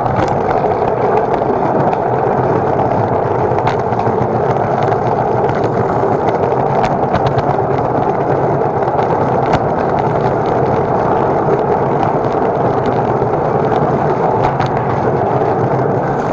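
Hard wheels of an equipment cart rolling steadily over a parking-garage floor, a continuous rumbling rattle that stops abruptly at the end.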